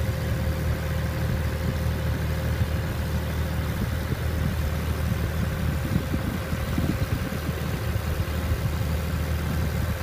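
Landini 5865 tractor's diesel engine running steadily under load while driving a PTO-driven root harvester digging potatoes, with a thin steady whine above the engine and irregular mechanical rattling from the harvester mixed in, strongest in the middle.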